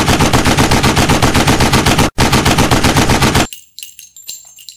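Automatic gunfire sound effect: a long, rapid burst of evenly spaced shots, broken for an instant just after two seconds, that stops suddenly about three and a half seconds in. A few light metallic clinks and tinkles follow.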